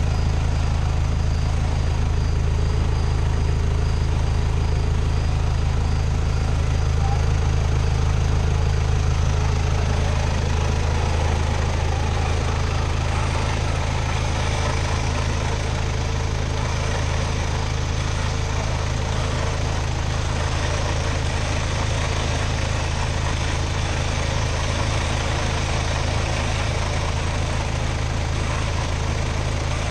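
4x4 pickup truck engine idling steadily: a deep, even drone that holds unchanged throughout.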